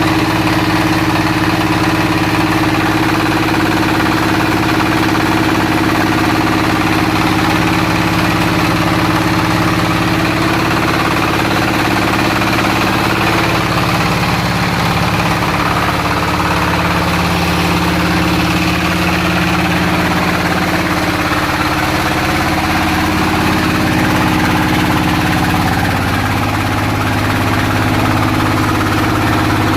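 Floating fish-feed pellet extruder machine running, a steady mechanical drone whose pitch shifts slightly in the middle.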